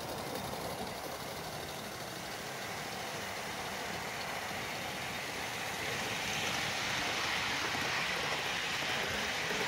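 Gauge 1 live-steam model locomotive running past with its coaches: a steady hiss of steam and running noise on the rails, growing louder about six seconds in as the train comes close.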